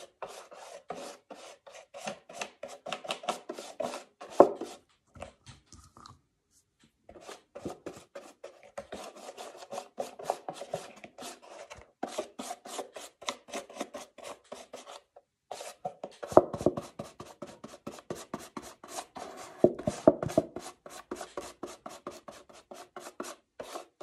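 Paintbrush brushing paint onto a cardboard milk carton in rapid back-and-forth strokes, several a second, with brief pauses about six and fifteen seconds in.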